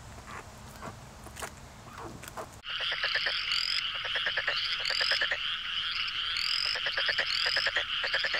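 A few faint pecking clicks, then about two and a half seconds in a loud chorus of calling frogs cuts in: a steady dense trilling with rapid pulsed trills and repeated short rising chirps.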